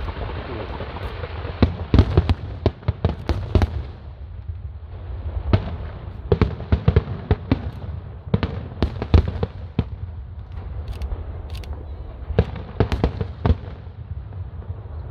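Aerial display fireworks going off in rapid, irregular bangs, coming in clusters with short lulls between them.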